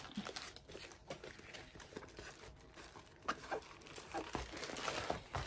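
Rolled diamond-painting canvas with its plastic film cover being unrolled and handled, a faint crinkling rustle that gets busier in the second half.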